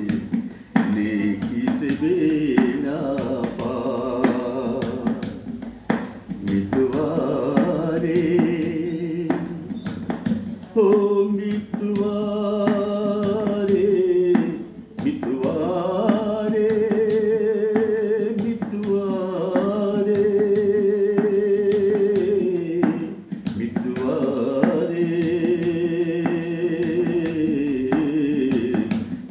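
An older man singing a slow melody, holding long notes with a wavering vibrato and pausing briefly between phrases.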